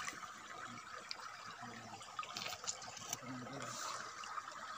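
Faint, steady running of river water, with a couple of quiet murmured words in the background.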